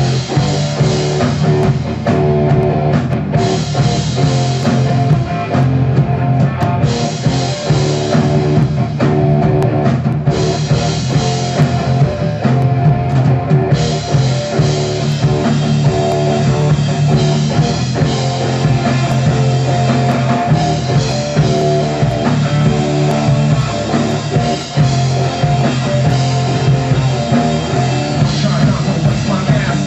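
Rock band playing an instrumental passage without vocals: drum kit and guitar.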